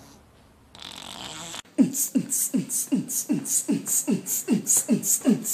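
A steady beatbox-style rhythm: deep thumps that drop in pitch, each paired with a sharp hiss, about three a second. It starts a little under two seconds in, after a short stretch of hissing noise.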